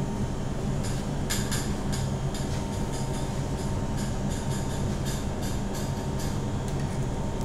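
Steady low mechanical hum, with many light clicks and taps of a chef's knife on a plastic cutting board as raw fish fillet is sliced into pieces.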